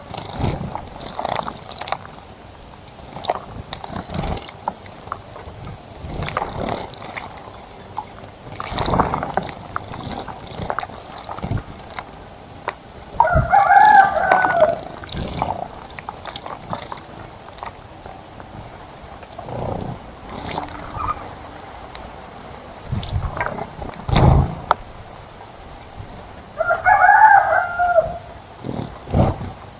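Two long bird calls, about thirteen seconds apart and each lasting about a second and a half, with scattered knocks and low bumps between them.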